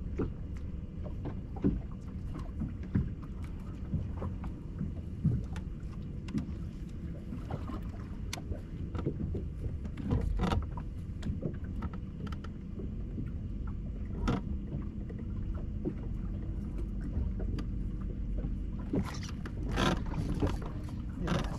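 Water slapping against a bass boat's hull as a steady low wash, with a few sharp knocks on the boat, more of them near the end.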